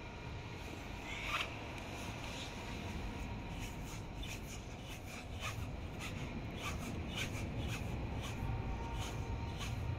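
Scattered light clicks and taps of a hand tool and small scooter parts being handled, over a steady low background rumble.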